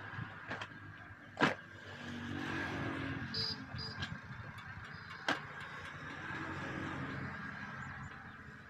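Vehicles passing on a road, the engine noise swelling and fading twice over a steady high hum, with two sharp slaps, about a second and a half in and again after five seconds, from heavy rubber truck-tyre flaps being handled.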